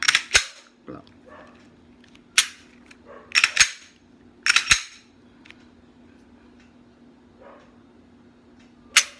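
Glock 17 Gen4 pistol being worked by hand to check its reassembly: a series of sharp metallic clacks and clicks from the slide and trigger, in clusters over the first five seconds and once more near the end.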